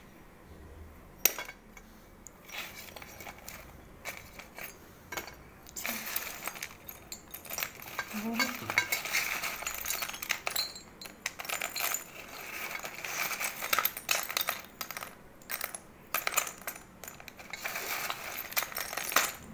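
Broken terracotta clay pot shards clinking and scraping against one another and a steel plate as a hand sorts through them: a few sharp clicks at first, then steady clattering from about six seconds in.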